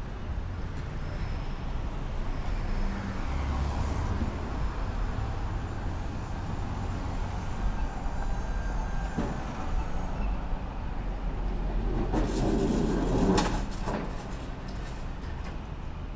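Street traffic: a steady low engine rumble, swelling into a louder passing vehicle about twelve seconds in.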